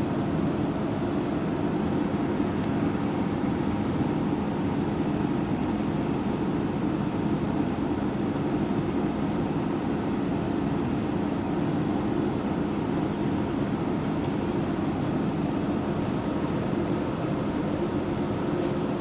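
Steady engine and road noise of a city bus driving along, heard from inside the bus.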